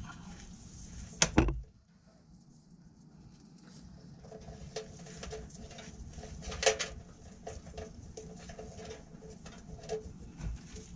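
Wires rustling and scraping against the metal edge of a hole in a truck's frame rail as they are pushed and pulled through by gloved hands, with a sharp knock about a second in.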